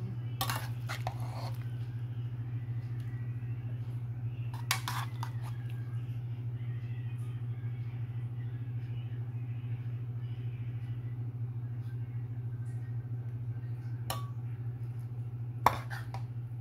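A metal spatula scraping and tapping in a pan of cooked pork and bottle gourd: a few short scrapes near the start and around five seconds in, then a sharp tap near the end. A steady low hum runs underneath throughout.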